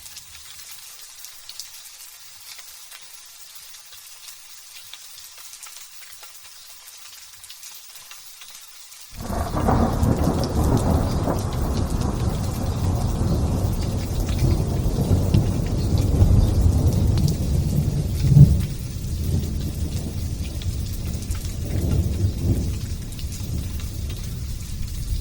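Light drizzle hissing softly, then about nine seconds in a long, loud roll of thunder begins suddenly and rumbles on, with a louder peak past the middle and another swell near the end.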